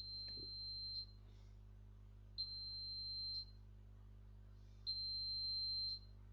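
Three long electronic beeps at one high steady pitch, each about a second long with a click at its start and end, spaced about a second and a half apart. They are the Morse code letter O: dash, dash, dash.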